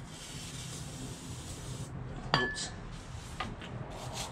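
WD-40 aerosol can spraying with a steady hiss for about two seconds, then cutting off. Shortly after comes a single sharp metallic clink with a brief ring.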